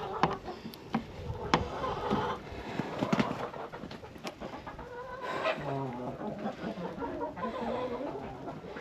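A flock of hens clucking and calling, with several sharp clicks and knocks in the first few seconds.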